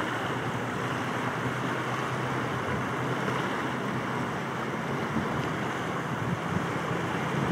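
Steady wind buffeting the microphone over choppy, wind-whipped water, with a faint low hum underneath.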